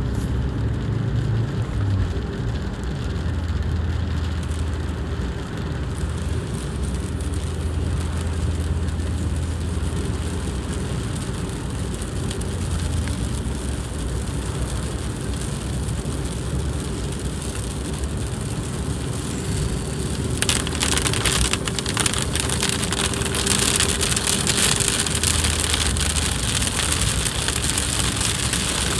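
Rain on a car's roof and windscreen and the hiss of tyres on a wet road, heard from inside the moving car over a low engine hum. The rain noise grows clearly louder about twenty seconds in.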